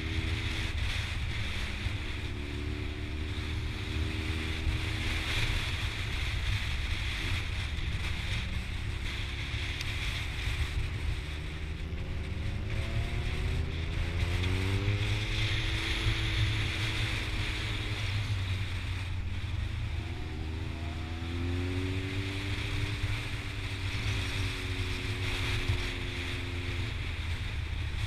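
Motorcycle engine running at road speed, its pitch climbing as it accelerates around the middle and again about two-thirds through, under a heavy rumble of wind on the microphone.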